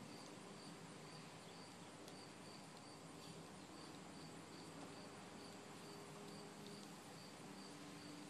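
Near-silent outdoor ambience with a faint insect chirping steadily in the background, a high chirp about twice a second, over a faint low hum.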